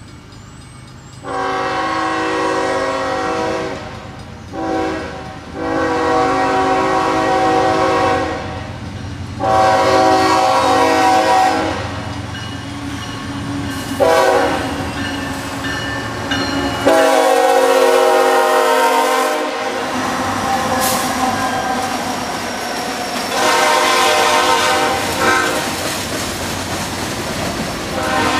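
Union Pacific freight locomotive's air horn sounding a series of long blasts mixed with a few short ones. Under the blasts runs the steady low rumble of the passing train.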